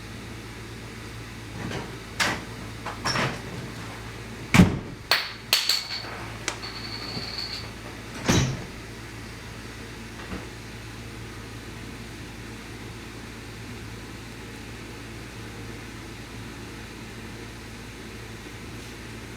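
A handful of sharp knocks and clicks over a few seconds, the loudest about four and a half seconds in, with a brief high squeak among them, over a steady low hum.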